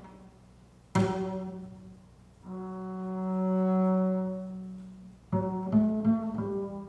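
Solo double bass: a single loud plucked note about a second in rings and dies away, then a long bowed note swells and fades, and near the end a quick run of plucked notes begins.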